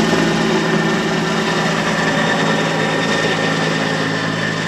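Helicopter flying low overhead: a steady rotor and engine drone with a thin high turbine whine, easing off a little near the end as it moves away.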